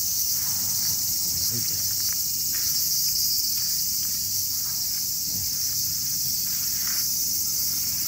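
A steady, high-pitched chorus of insects buzzing without a break.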